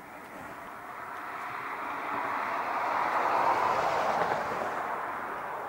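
A passing vehicle: a steady rushing noise that swells to a peak about three and a half seconds in, then fades.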